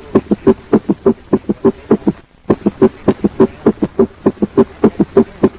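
Recorded heart sounds of a summation gallop: a fast triple rhythm in which the sounds of atrial contraction and rapid ventricular filling (S4 and S3) merge into one large extra sound in diastole. This happens at a rapid heart rate, as in left ventricular failure. The short thuds come about five a second and break off briefly about two seconds in.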